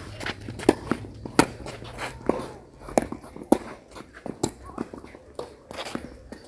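A scatter of sharp pops and dull knocks of tennis balls being struck and bouncing on clay courts, irregularly spaced.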